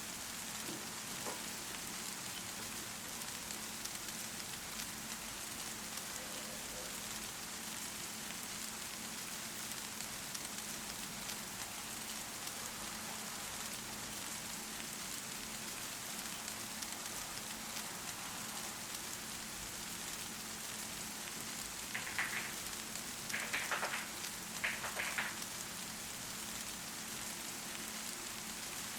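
Steady rain falling on a surface, an even hiss of drops, with a brief cluster of louder sounds about three quarters of the way through.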